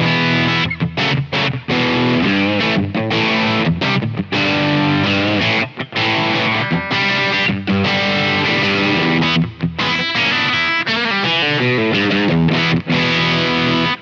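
Electric guitar played through a Simplifier MK2 preamp on its Marshall-style voicing with the gain turned up: distorted chords and riffs with brief breaks between phrases, stopping abruptly at the end.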